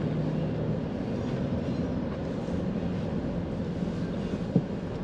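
Steady low rumble of a car's engine and tyres heard from inside the cabin while driving slowly over snowy pavement, with one short click near the end.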